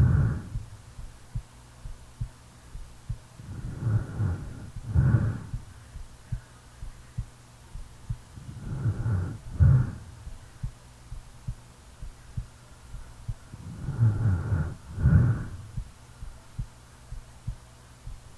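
A sleeping person snoring, one snore about every five seconds, each in two parts: a longer rasp and then a shorter one. Soft, regular heartbeat thumps run underneath.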